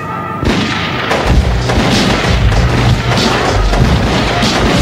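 A volley of gunshots and booms, a shootout sound effect, breaking in about half a second in over a heavy low bass, after a siren tone stops.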